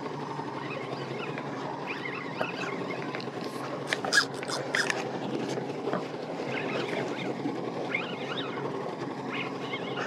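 Spinning fishing reel being cranked under load against a fighting fish, with small squeaks and clicks from the reel and a few sharp clicks around four to five seconds in, over steady wind and water noise.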